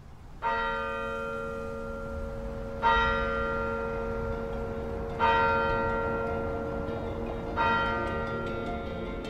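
A large bell tolling four times, about two and a half seconds apart, each stroke ringing on with a long, slowly fading hum.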